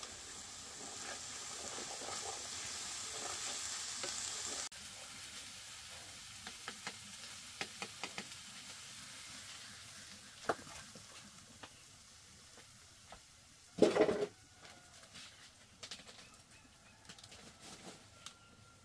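Ant egg mixture sizzling as it is stir-fried in a frying pan, for the first four or five seconds; the sizzle cuts off abruptly. Then scattered light clicks and knocks of things being handled, with one loud knock about fourteen seconds in.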